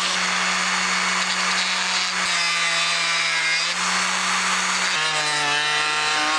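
Ryobi rotary tool running at high speed, its small cutoff disc cutting a slot into a wooden lure body. The steady whine drops in pitch as the disc bites into the wood, about two seconds in and again about five seconds in.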